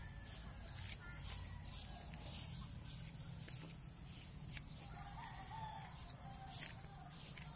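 A rooster crowing faintly, one wavering call about a second and a half long, starting about five seconds in, over the scattered crunch of footsteps on a gravel path.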